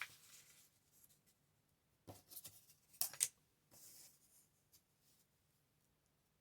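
Paper being handled on a craft table: a few short crackles about two seconds in, two sharp clicks a second later, and a brief rustle near four seconds, with quiet in between.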